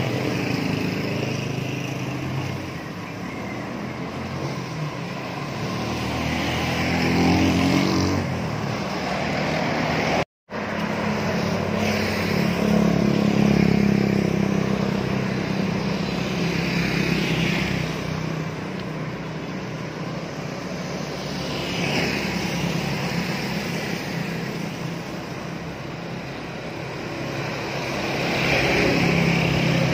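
Road traffic: motor vehicles passing one after another over a steady engine drone, each swelling and fading in a few seconds. The sound cuts out completely for a moment about ten seconds in.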